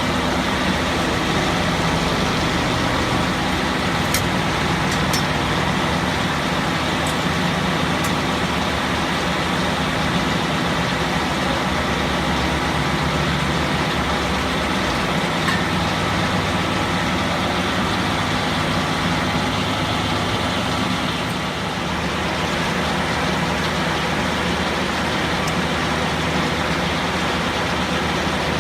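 Antique sawmill running steadily, its engine and machinery going with a constant even hum, with a few faint ticks about four to eight seconds in.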